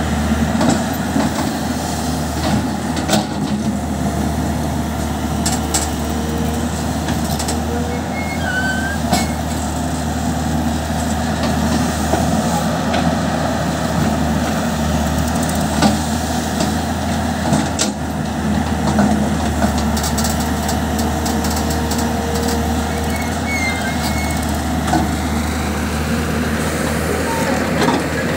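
Tata Hitachi EX200LC crawler excavator's diesel engine running steadily as it digs and dumps earth into a tractor trolley, with tractor engines idling alongside. Occasional sharp knocks come from soil and stones being dropped.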